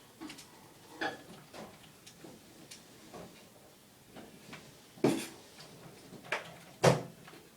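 Irregular short clicks and knocks, a dozen or so spread unevenly, with two louder knocks about five and seven seconds in.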